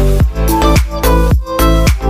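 Upbeat electronic dance music with a steady thumping beat, bass drops and synth melody lines.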